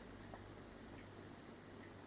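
Near silence: room tone with a faint steady low hum and a couple of faint ticks.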